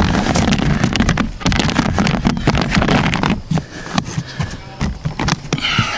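Irregular knocks, clicks and rustling of close handling noise.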